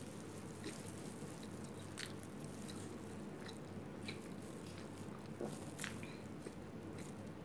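Quiet chewing of a mouthful of burger, with short wet mouth clicks now and then and light rustling of plastic gloves and wrapper, over a steady low hum.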